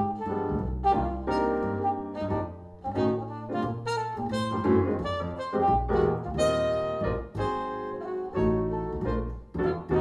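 Small-group jazz from a trumpet, double bass and piano trio, with quick runs of horn notes over a walking bass line. It is played back through Q Acoustics 3020 bookshelf speakers and picked up in the room about 2 m away.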